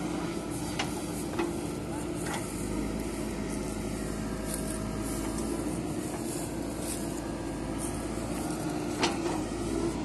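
JCB 3DX backhoe loader's diesel engine running steadily while it works soil with the backhoe bucket. A few sharp knocks come over it, the loudest about nine seconds in.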